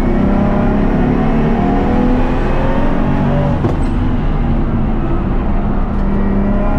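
BMW M4's race-built S55 straight-six with a single EFR 8474 turbo, pulling hard under load with its pitch climbing. There is a brief break a little past halfway, then it climbs again.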